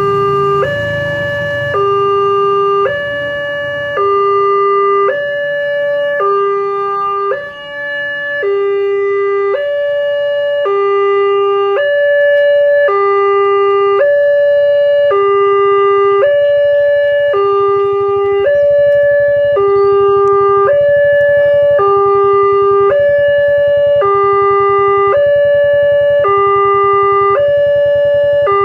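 Railway level-crossing warning alarm: an electronic two-tone signal alternating steadily between a higher and a lower tone, about one change per second, warning that a train is approaching. A low rumble builds underneath from about 18 seconds in.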